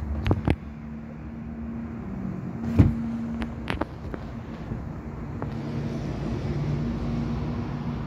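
Steady low mechanical hum, like a motor running, with a few sharp clicks and a louder knock about three seconds in.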